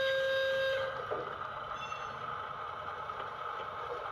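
A train horn holds one steady note and cuts off about a second in. A steady, fainter running hum with a light hiss carries on after it.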